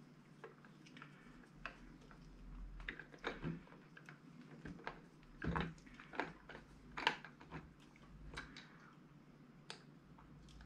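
Irregular small clicks and knocks of hands handling cables and parts inside a homemade tennis ball machine, with a few louder knocks around the middle.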